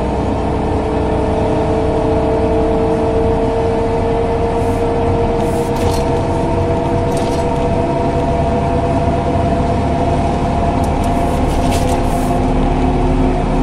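Ikarus 415 city bus under way: its DAF LT 160 diesel engine rumbling, with the ZF 4HP 500 automatic gearbox giving a steady whine over it.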